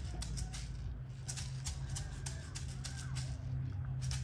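Hand rattles or shakers shaken in a loose rhythm, about three to four shakes a second, over a steady low drone.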